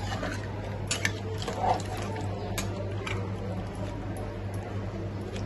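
A long metal spoon stirring a soupy meat-and-bottle-gourd curry in a large aluminium pot, with a few light clicks of the spoon against the pot. A steady low hum runs underneath.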